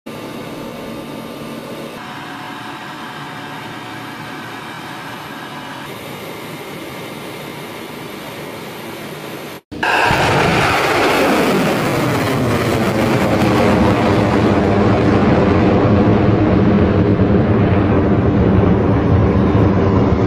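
A steady hum for about the first ten seconds. Then, after a sharp break, a missile's rocket motor ignites with a sudden blast and a loud, steady rush that sweeps down in pitch as the missile climbs away.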